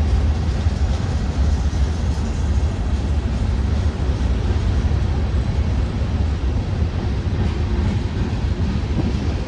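Union Pacific manifest freight train rolling past: a steady low rumble with a hiss spread above it, which eases off at the very end.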